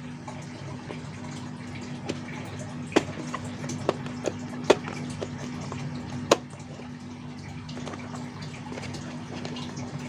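Handling noise from a DT-9205A digital multimeter being worked out of its red rubber holster: about six sharp, irregular clicks and taps of plastic, over a steady low hum.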